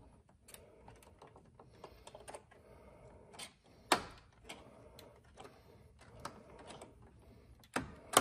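Hand tools prying at the plastic clips of a car's front grille emblem: scattered small clicks, taps and scrapes of plastic on plastic, with sharper clicks about four seconds in and near the end as the tight clips are worked loose.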